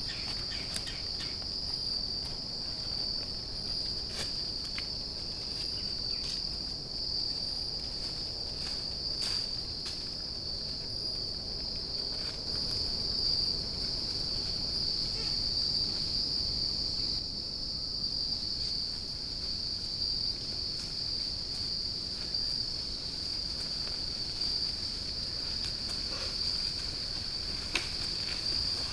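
Steady insect chorus in the woods: a continuous high-pitched shrill drone that does not let up, with a few faint clicks now and then.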